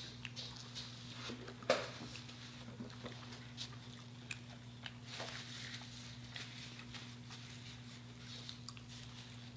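Eating sounds: bites and chewing of fried chicken and biscuit, with scattered crisp crackles, the loudest nearly two seconds in, over a steady low hum.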